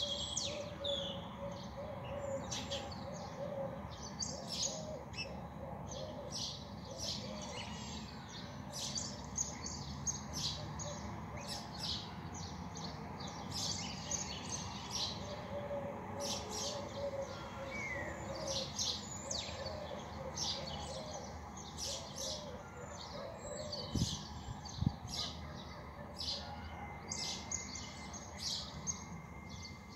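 Small birds chirping, many short high calls overlapping throughout, over a steady low background hum. Two sharp clicks come near the end.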